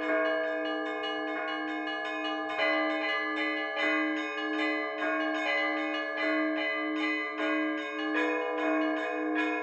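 Orthodox church bells rung in a peal: a rapid pattern of strokes on the small high bells over a deeper bell struck steadily, about one and a half strokes a second.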